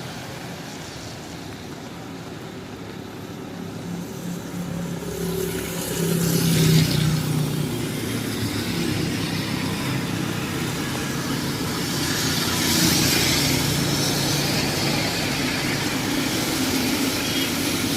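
Road traffic passing on a rain-wet street: engines running, with tyre hiss swelling as vehicles go by, loudest about six seconds in and again around thirteen seconds.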